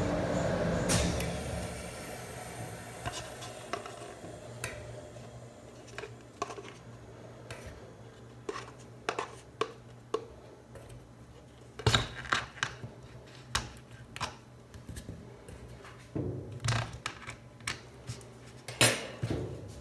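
Metal tongs clicking and tapping against a steel cold-plate pan and a paper cup as rolled ice cream is lifted into the cup: scattered sharp clicks, with louder clusters near the middle and near the end. A steady hum fades out within the first two seconds.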